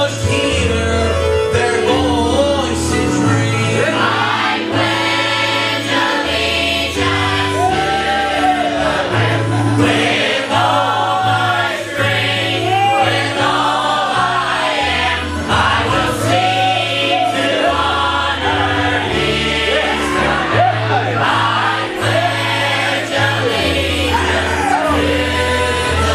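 Mixed church choir of men and women singing a gospel song, with keyboard accompaniment and a bass line under the voices.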